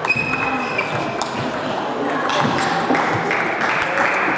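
Table tennis rally: a celluloid ball clicking sharply off rackets and the table, several hits in the first two seconds, over the steady hubbub of a large sports hall with voices.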